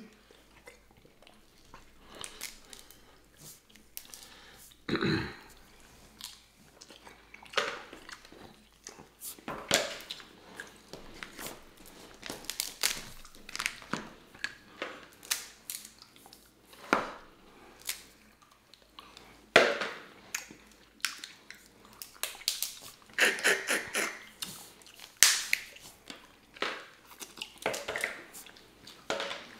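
Snow crab leg shells cracking and snapping in the hands, mixed with chewing of the crab meat. The cracks come sharp and irregular, with a quick run of them late on.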